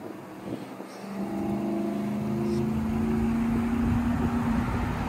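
A motor vehicle engine running with a steady hum, swelling in about a second in and holding with a low rumble underneath.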